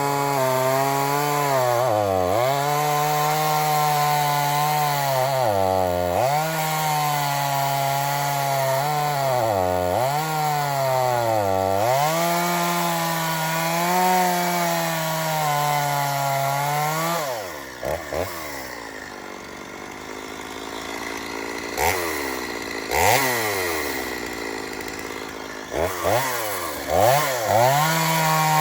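Two-stroke gas chainsaw running at full throttle, cutting through a log, its pitch dipping sharply and recovering several times. About two-thirds of the way in, the throttle is released and it drops to idle, then it is blipped in a few short revs near the end.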